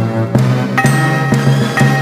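Background music: several held tones, with the notes changing every half second or so.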